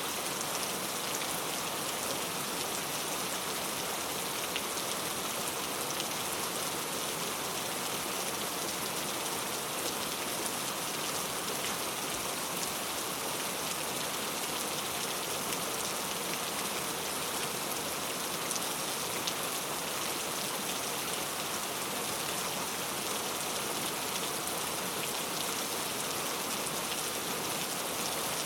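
Steady rain falling and pattering on hard surfaces, with fine drop ticks over an even hiss; a rain-sound track.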